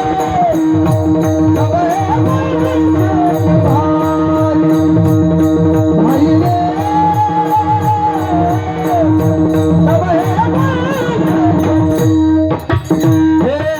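Marathi kirtan music: a singer holds long, wavering notes over a steady drone, with a quick drum pattern and regular cymbal strokes. The music drops out briefly near the end.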